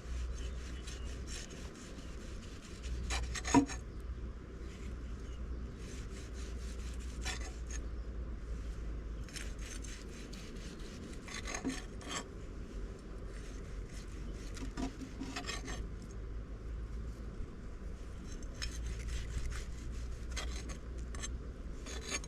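A hand tool scraping with irregular rasping strokes, over a steady low hum, with one sharper knock about three and a half seconds in.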